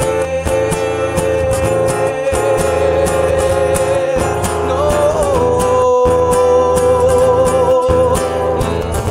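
Acoustic guitar strummed live, with a long held sung note over it that shifts pitch about halfway through and stops shortly before the end.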